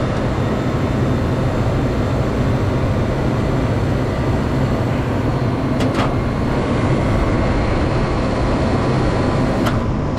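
Walk-in freezer refrigeration unit running, a steady loud mechanical hum with fan noise. Two short clicks, about six seconds in and again near the end.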